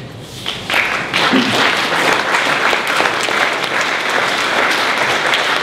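Audience applauding: clapping from many hands starts suddenly a little under a second in and holds steady.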